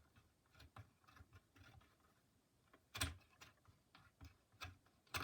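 Faint scattered metallic clicks and taps of a nut being turned off a bolt by hand, with a sharper knock about three seconds in and another near the end.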